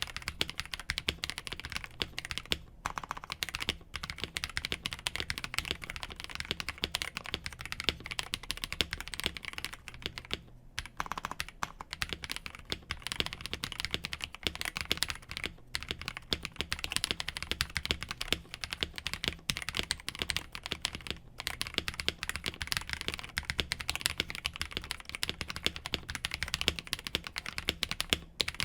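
Fast, continuous typing on a KBDfans KBD67 Lite R2 mechanical keyboard with stock KTT Sea Salt Lemon linear switches and GMK keycaps: a dense stream of keystrokes with a few brief pauses.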